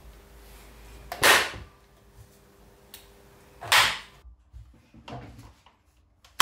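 Front hand guard and chain brake lever of a DeWalt DCM575 cordless chainsaw being flipped by hand, snapping sharply into place twice, about two and a half seconds apart.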